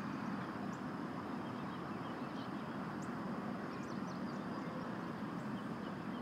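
Steady low outdoor rumble with scattered faint high chirps and a thin high steady tone over it.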